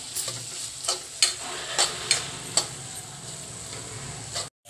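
Metal spoon stirring cluster beans through thick masala in a kadhai, clicking and scraping against the pan about every half second for the first three seconds, over a low sizzle of frying. The sound drops out briefly near the end.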